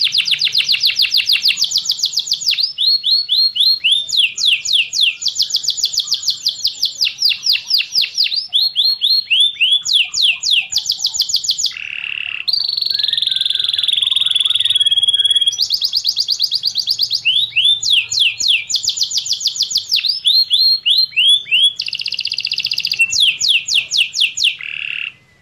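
Domestic canary singing a long song of fast trills: runs of rapidly repeated high notes, each run giving way to a different one every second or two. The song breaks briefly a little under halfway and cuts off for a moment near the end.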